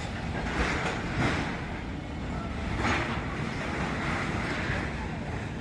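Building demolition by excavator: a steady low rumble of heavy machinery, with rough crashing surges of breaking and falling rubble about half a second in, just after a second, and near three seconds in.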